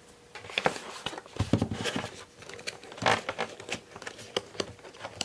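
Hands handling plastic toy packaging to free a small accessory: irregular rustling and crinkling with sharp clicks and taps, starting about half a second in.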